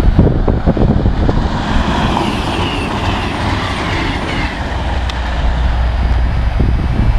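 An express passenger train rushing past at speed, a steady loud roar of wheels and air with heavy wind buffeting on the microphone. Through the middle a few short falling tones repeat.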